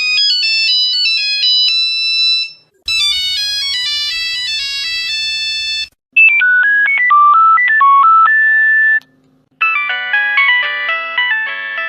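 A run of Nokia mobile-phone ringtones played back to back: four short melodies of high, beeping notes, each about three seconds long and parted by brief gaps, each in a different tone. The last two have a steady low hum beneath them.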